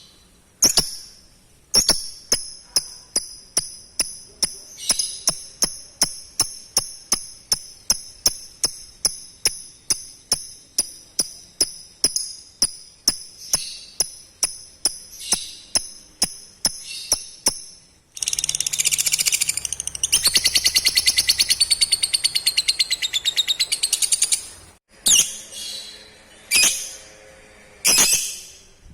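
Lovebird calling: a long run of sharp, high chirps about two a second, then a rapid continuous chattering trill for about six seconds, followed by a few single calls. The rapid chatter is the long trill that hobbyists call 'ngekek'.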